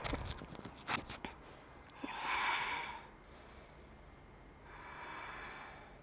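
A woman breathing audibly through the nose while holding a deep lunge: two long breaths, the first louder, about two and five seconds in.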